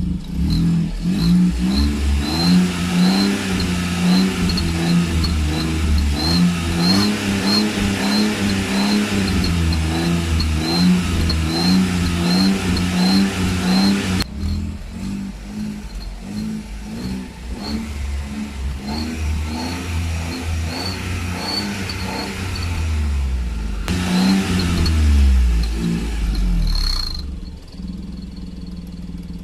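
Small Suzuki car's petrol engine revved up and down again and again, with a high whistle from a turbo-whistle gadget fitted to the exhaust tailpipe. The whistle comes in short pulses as the throttle is blipped.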